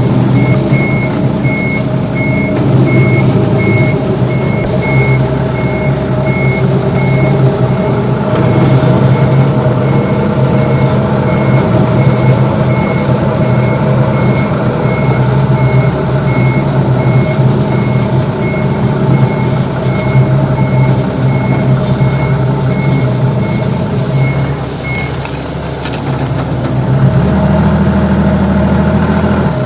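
Toyota 3.5-ton diesel forklift reversing: the diesel engine runs steadily under a repeating high-pitched reversing alarm beep, which stops about 25 seconds in while the engine keeps running.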